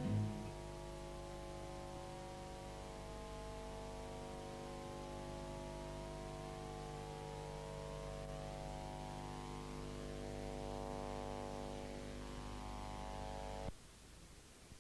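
The closing chord of background music, held as faint, steady sustained tones after guitar strumming dies away. It cuts off abruptly about a second before the end, leaving near silence.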